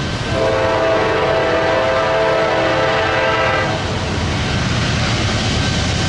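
Air horn of an approaching freight locomotive, the lead unit NS 4349, a GE AC44C6M rebuilt from a C40-9W, sounding one long chord-like blast of about three and a half seconds that stops well before the end. A low rumble continues underneath.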